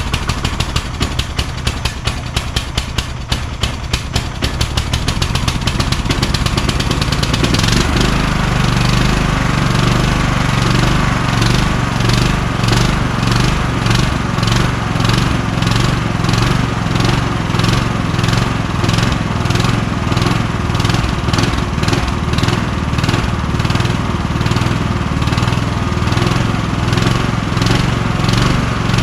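Kohler Courage engine on a Craftsman YS4500 lawn tractor, running just after start-up. For the first several seconds it fires in distinct rapid pulses at low speed. About 8 seconds in it picks up speed and settles into a steady, louder run.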